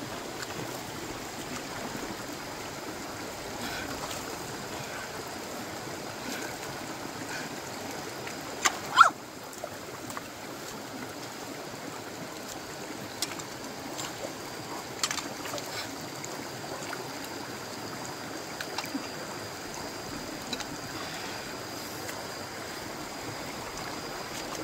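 Shallow, rocky stream flowing steadily, with a few short, sharp sounds over it, the loudest two close together about nine seconds in.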